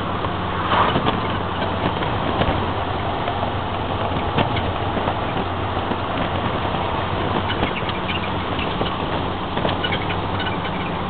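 A 1968 soft-top car's engine running steadily while driving, with a constant low hum, heard from inside the cabin under the canvas roof together with road and wind noise and scattered small clicks.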